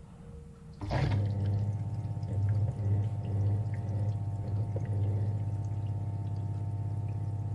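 Dishwasher kicking into its wash cycle about a second in with a sudden surge, then running with a steady low hum while water sprays and sloshes inside.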